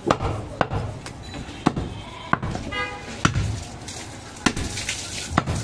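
A large curved butcher's cleaver chopping goat meat on a round wooden block: about seven sharp strikes, roughly a second apart.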